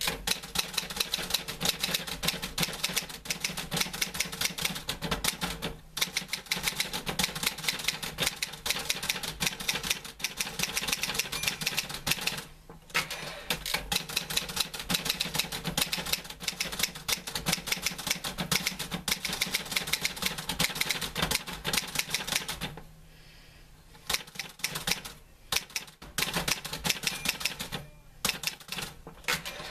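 Typewriter being typed on in rapid, continuous runs of keystrokes, broken by a few short pauses, the longest about a second near the end.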